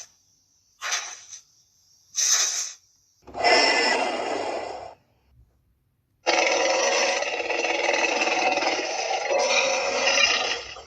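Tyrannosaurus roar sound effects: two short rasping bursts, a longer growl, a pause, then one long, rough roar held for several seconds.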